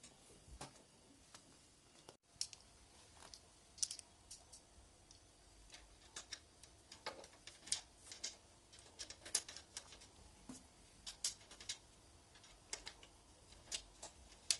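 Faint, irregular clicks and taps of metal and plastic bicycle parts being handled as a rear derailleur is fitted onto the frame's derailleur hanger. The sound drops out briefly about two seconds in.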